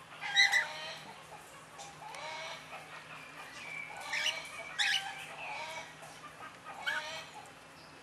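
Aviary birds calling: several loud, sharp parrot-like squawks, one about half a second in, a pair around the middle and another near the end, over softer chattering calls.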